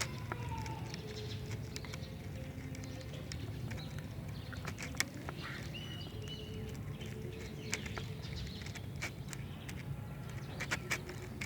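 Glue-and-borax slime being stirred in a container as it thickens: irregular light clicks and taps of the stirrer against the container over a steady low hum.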